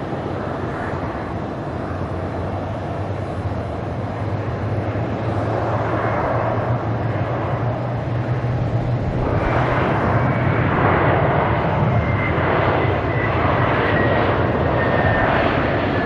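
Airbus A321-231 on its landing rollout, its IAE V2500 jet engines giving a steady rumble. About nine seconds in the engine noise swells and stays up, typical of reverse thrust being applied after touchdown, with a faint whine slowly falling in pitch.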